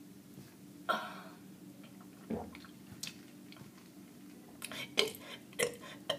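A person's short burps and small mouth noises, a few at a time with pauses between them, over a low steady hum.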